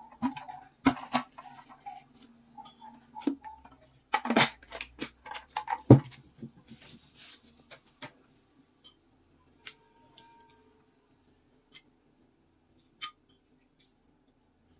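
Clicks and knocks of eating utensils and tableware being handled at a table. There is a cluster of louder knocks in the first six seconds, the loudest about four and six seconds in, then only a few faint scattered clicks.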